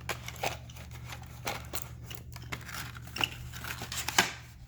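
Plastic packaging being handled and pried apart to free a gaming mouse's interchangeable side grips: irregular clicks, crinkles and scrapes, with a sharper snap about four seconds in.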